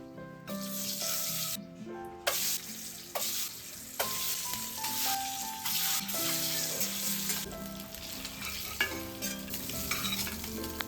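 Food sizzling and frying in a hot pan while it is stirred, with a few sharp knocks against the pan. The sizzle starts about half a second in and drops out briefly near two seconds. Soft plucked background music plays underneath.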